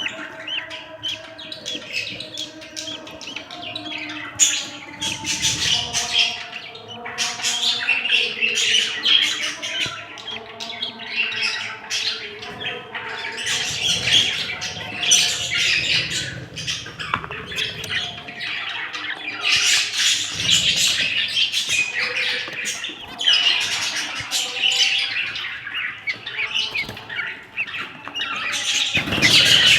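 Budgerigars chattering and squawking in a rapid, continuous warble that swells into louder spells every few seconds.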